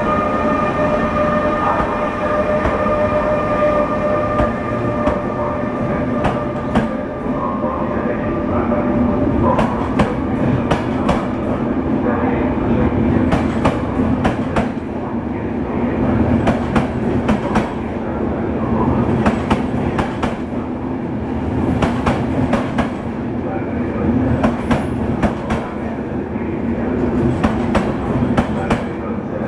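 MÁV class 470 (Siemens Taurus) electric locomotive and its passenger coaches passing close by. Steady whining tones sound early on and stop about ten seconds in, under a steady rumble and repeated clicks of wheels over rail joints as the coaches roll past.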